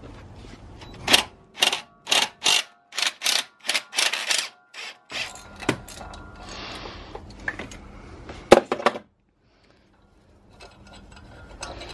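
Hand ratchet clicking in a run of about ten quick strokes, undoing the long Torx bolt that holds the drive belt tensioner to the engine block. A single sharp metallic click follows a few seconds later.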